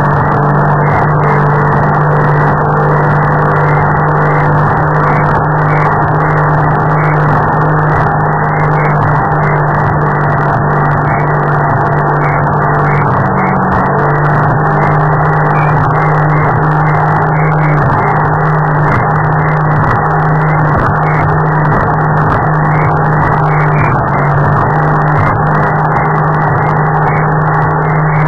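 Boat engine running hard at a steady speed, heard close up from on board over the rush of water and wind. Its pitch holds level, with a brief dip about thirteen seconds in.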